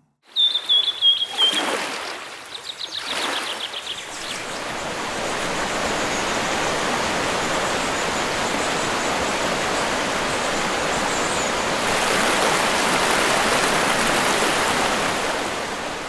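Rushing water from a waterfall or stream, a steady hiss that builds up over the first few seconds. High bird chirps and trills sound over it in the first four seconds.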